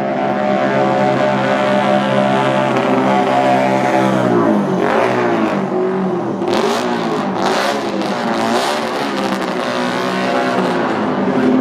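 Group C race car engine running at idle, wavering in pitch, then blipped three times about a second apart before settling back to a steady idle.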